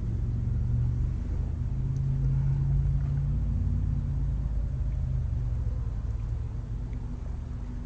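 Low engine drone with a steady hum that swells over the first few seconds and then slowly fades.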